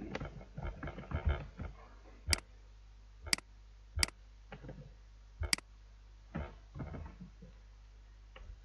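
Computer keyboard and mouse clicking. A run of keystrokes comes first, then four sharper, louder clicks roughly a second apart, then a few more keystrokes.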